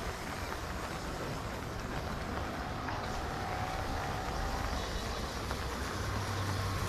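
Steady street traffic noise, with a low engine hum growing louder near the end.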